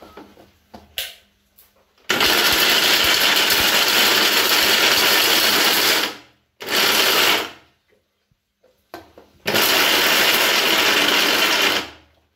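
Electric mixer grinder running with pitted dates in its steel jar, grinding them toward a paste. It runs in three bursts: about four seconds, then a short one of under a second, then about two and a half seconds. Each starts suddenly and trails off as it stops.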